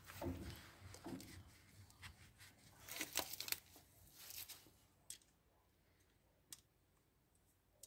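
Faint rustling and scraping as hands work wires and hoses with a screwdriver in a tractor engine bay, followed by two short sharp clicks, then near quiet.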